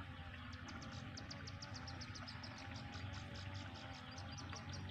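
High-pitched rapid chirping, about seven short chirps a second, starting about half a second in and running on steadily, over a steady low background rumble.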